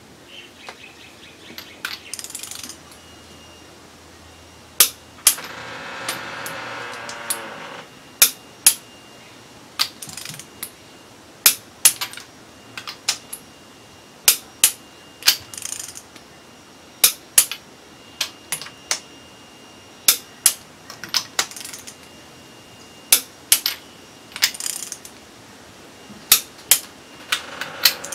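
A long-handled wrench tightening the cylinder-head bolts on a Holden Ecotec 3.8-litre V6: sharp metallic clicks, many in pairs about half a second apart, with a brief rasping sound about six seconds in.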